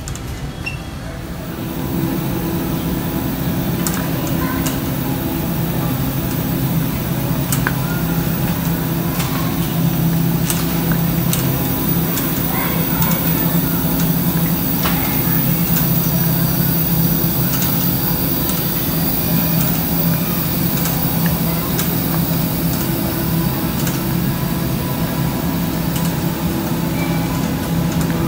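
Supermarket ambience: a steady low hum and rumble that swells about two seconds in, with a few light clicks and faint distant voices.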